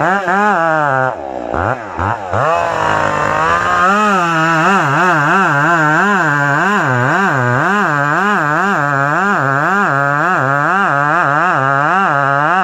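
Two-stroke chainsaw engine running under load while cutting wood. Its pitch rises and falls evenly about two to three times a second, with a brief drop in revs near the start.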